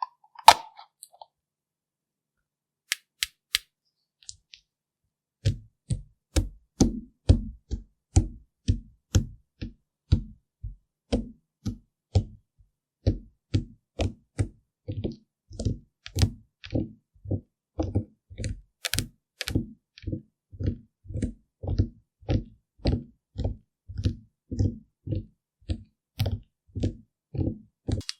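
A few scattered light clicks, then from about five seconds in a steady run of soft taps or pats, about two a second.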